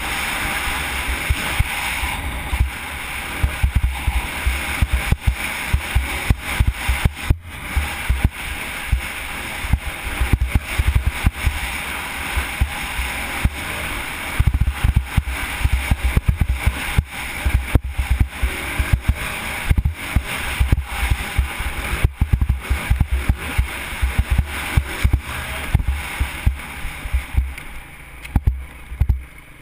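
Wind buffeting a helmet camera's microphone during a dirt bike ride: a heavy, uneven rumble over the bike's running engine, with frequent short knocks from the rough ground.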